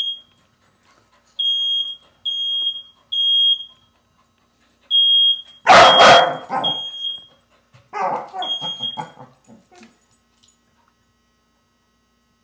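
Smoke alarm sounding its high beeps in groups of three with short pauses between the groups. About halfway through, a dog lets out one loud bark, followed a couple of seconds later by a quick run of barks and yips.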